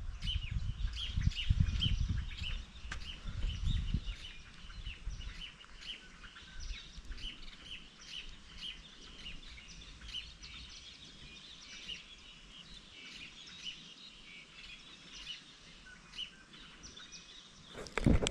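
Small birds chirping over and over in short, quick notes. A low rumble runs under them for the first few seconds.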